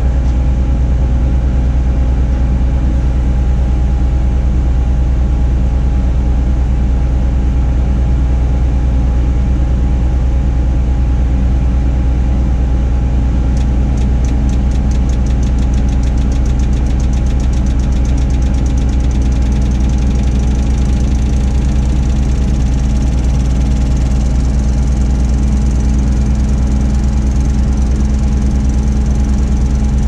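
Tadano 180G-5 all-terrain crane's engine running steadily, with a deep drone, heard from inside the operator's cab. About halfway through, a rapid high-pitched ticking joins in.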